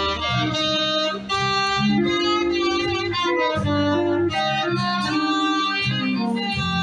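A live band playing: a saxophone carries the melody in long held notes over electric guitar and a walking bass line.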